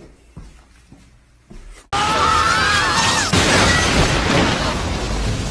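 Faint clicks and handling noise, then about two seconds in a sudden loud crash-like noise with sliding, wavering high tones over it that carries on, like a distorted meme sound effect.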